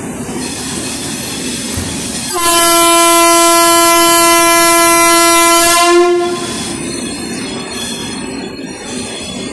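Vande Bharat Express train horn sounding one long, steady blast of about four seconds, over the steady low rumble of the train at the platform.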